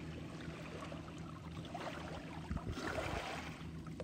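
Faint shoreline water lapping, under a low steady hum, with a soft knock and a brief rustle of handling about halfway through.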